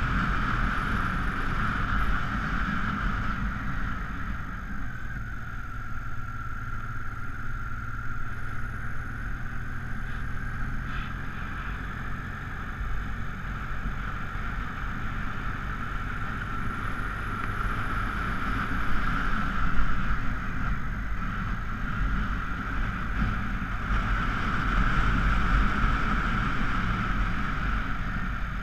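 Honda Africa Twin XRV750's V-twin engine running under load on a winding uphill climb, mixed with wind rushing over the microphone. The engine sound swells and eases a few times through the bends, with a brief louder moment about two-thirds of the way in.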